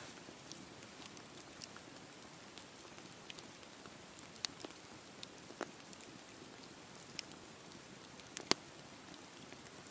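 Campfire crackling: a steady soft hiss with scattered sharp pops and snaps at irregular intervals, the loudest about eight and a half seconds in.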